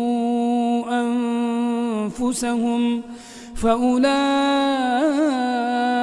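A solo voice chanting Quran recitation with no accompaniment, drawing out long held notes. It breaks once for a breath a little after three seconds in, then holds a note with a wavering ornament near five seconds.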